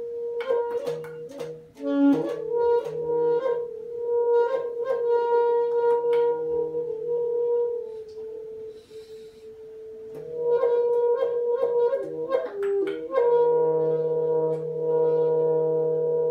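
Alto saxophone and percussion improvising: long held tones, a steady high note over a lower drone, with quick sharp clicks and taps running across them. The held tones drop away for a couple of seconds about halfway through, with a short hiss, then come back strongly.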